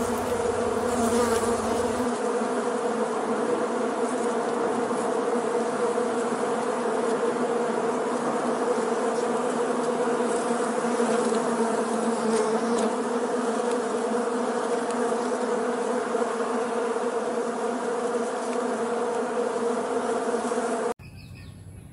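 Swarm of hornets buzzing steadily around their paper nest, a continuous droning hum that cuts off suddenly about a second before the end.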